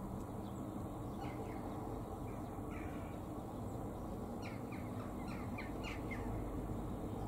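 Eurasian magpie chattering: a few short calls about a second in, then a quick run of several short falling calls past the middle. Steady low background noise runs underneath.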